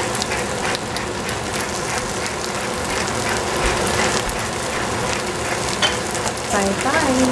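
A hand-twisted spice grinder grinding seasoning with many quick clicks, over spinach sizzling steadily in a hot frying pan.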